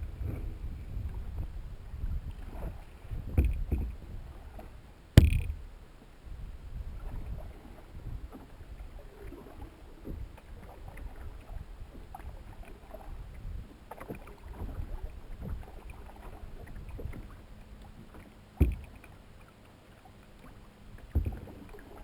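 Canoe being paddled on a lake: low water and handling noise with a few sharp knocks against the canoe, the loudest about five seconds in and two more near the end.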